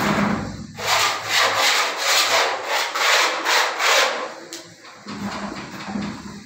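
Putty blade scraping wet wall putty across a wall in quick rough strokes, about two a second, growing fainter after about four seconds.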